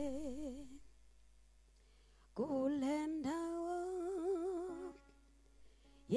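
Unaccompanied solo voice humming a slow worship melody in long held notes with wide vibrato. A note fades out just under a second in, and after a short pause a longer phrase runs from about two and a half to five seconds in. A new note begins right at the end.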